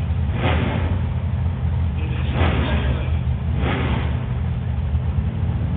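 Two Super Stock drag-racing cars' engines idling at the starting line, a steady low drone with an uneven, lumpy pulse.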